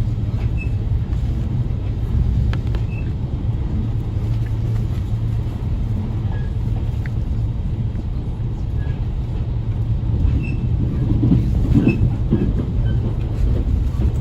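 A JR Kyushu limited express train running at speed, heard inside the carriage: a steady low rumble of wheels on track with faint scattered clicks, swelling a little near the end.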